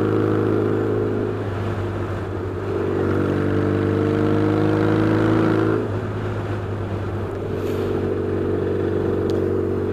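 Yamaha XS650 parallel-twin engine running under way on the road through pipes that are a bit on the loud side. The revs climb gradually for a few seconds, fall back about six seconds in, then hold steady.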